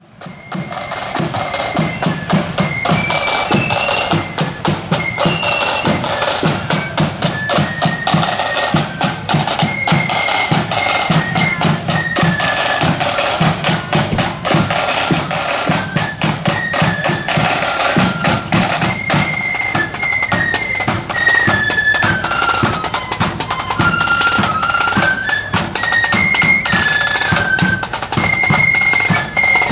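Marching flute band playing a tune: flutes carry a stepping melody over a steady beat of snare drums and bass drum.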